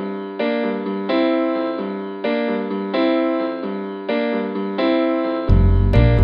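Background music: keyboard chords struck about every three-quarters of a second, each fading away. About five and a half seconds in, a deep bass and percussion come in.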